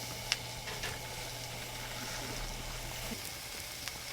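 Meat sizzling on a grill: a steady hiss with a few sharp crackles.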